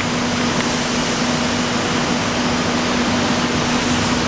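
Steady mechanical drone of factory machinery or ventilation: an even noise with a constant low hum running under it.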